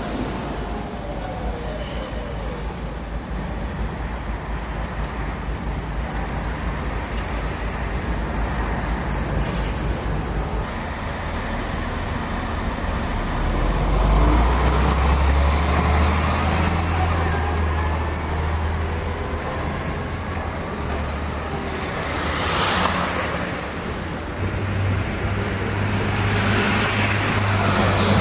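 Street traffic with trams and motor vehicles passing: a steady rumble, a low engine drone strongest from about halfway, and vehicles swishing past near the end.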